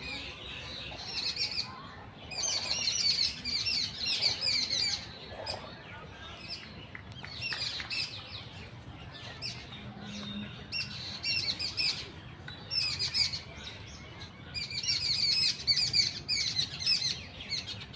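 Birds chirping in repeated bursts of rapid, high chirps, each burst lasting a second or two, with short quieter gaps between.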